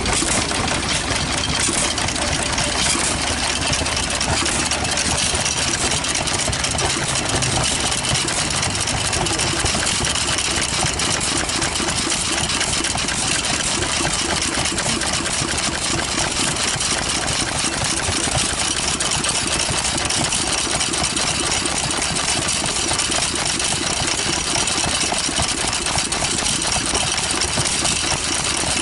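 Vintage stationary engine with magneto ignition running steadily, its twin flywheels turning while it belt-drives a small water pump.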